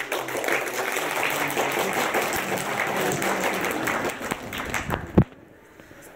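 Audience applauding in a theatre hall. The clapping stops about five seconds in with a single loud thump.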